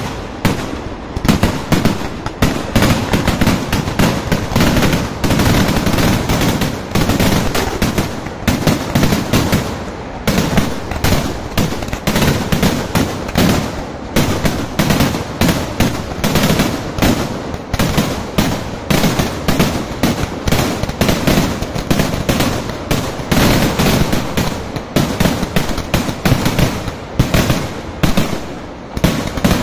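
Kerala temple-festival fireworks (vedikkettu) going off in a rapid, unbroken barrage of loud bangs, several each second, for the whole stretch.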